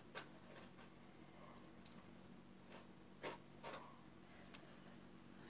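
Near silence with a few faint, scattered clicks of knitting needles as stitches are worked.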